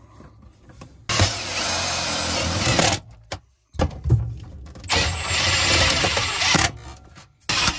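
Cordless drill running in two bursts of about two seconds each, working on the sheet-metal collar of a stove pipe at the ceiling, with handling clicks between them.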